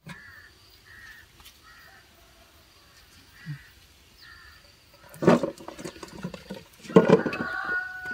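Metal cookware clanking against an aluminium steamer pot: two loud clatters about five and seven seconds in, the second leaving a brief metallic ring. Faint repeated chirps sound in the first few seconds.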